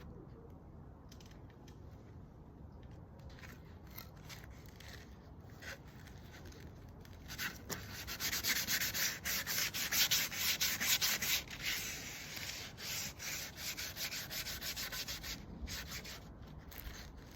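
Wood being sanded by hand with sandpaper: rapid back-and-forth rubbing strokes, faint at first, then loud and fast about seven seconds in, easing off again near the end.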